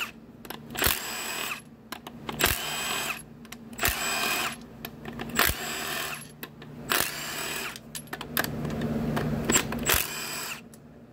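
Milwaukee M12 Fuel cordless impact wrench spinning out the 10 mm bolts of a transmission's front support, one after another, in a series of short bursts about a second apart, with a longer run near the end.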